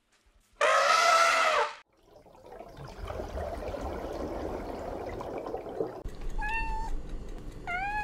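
An elephant trumpets once, a loud call of about a second that bends in pitch. Then comes a few seconds of steady underwater rushing, and near the end a kitten meows twice.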